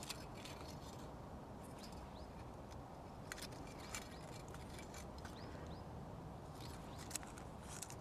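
Faint, scattered crinkles and clicks of thin aluminium foil being folded and pinched between fingers, with a few sharper crackles about three, four and seven seconds in, over a low steady background.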